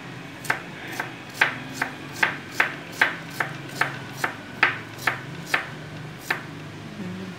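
Kitchen knife chopping jicama into small dice on a wooden cutting board: about fifteen sharp chops, two to three a second, that stop about a second before the end.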